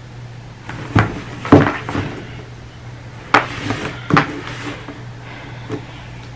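Cardboard product box being handled and opened on a table: four sharp knocks and thuds with scraping and rustling of cardboard in between.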